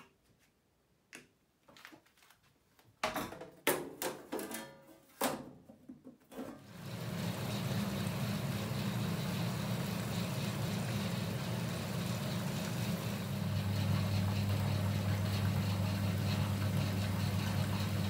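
A few knocks and clicks, then about six seconds in the 1960s Hoover single-tub washing machine's pump starts and runs steadily with a low hum, pumping the wash water out through the hose into a stainless steel sink. The hum deepens and strengthens slightly about halfway through the pumping.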